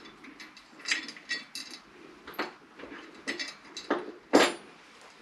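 Irregular small metal clinks and taps as a nut and bolt are worked by hand up under a motorcycle's rear fender, with one louder knock about four seconds in.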